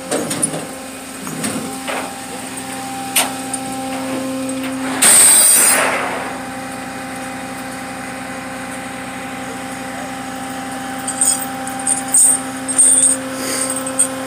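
Rollback tow truck's engine running with a steady hum while it is rigged to winch a non-starting SUV onto its deck. About five seconds in there is a loud burst of hiss lasting about a second, and near the end a few short metallic clinks from the hook and chain being handled.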